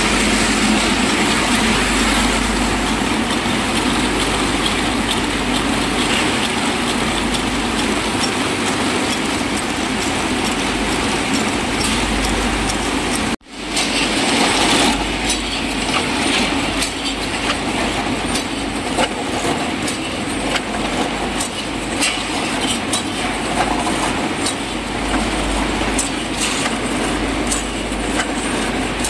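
Match factory machines running with a steady mechanical clatter and rapid small clicks. About halfway through the sound breaks off for an instant, then goes on with sharper, more separate clicks.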